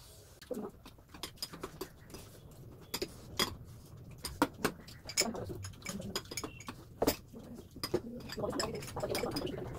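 Metal spoons clinking and scraping against ceramic bowls in a string of sharp clicks, with chewing and eating sounds growing denser near the end.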